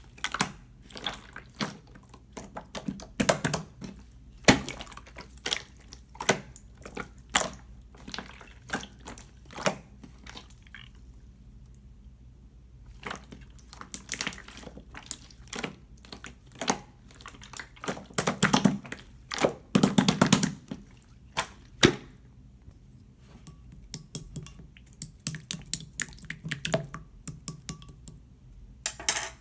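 Clear slime being squeezed and pressed by hand, giving irregular wet clicks and pops, with a dense run of them about two-thirds of the way through.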